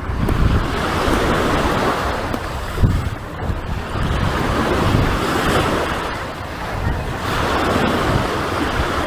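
Surf washing onto the shore, swelling and easing about three times, with wind buffeting the microphone.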